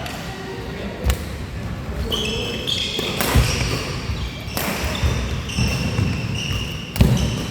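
Badminton play: sharp racket strikes on the shuttlecock, the loudest near the end, with sports shoes squeaking on the court floor in between.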